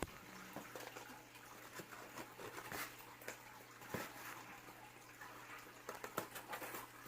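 Faint rustling and light knocks of packaging being handled, scattered and irregular, over a steady low hum.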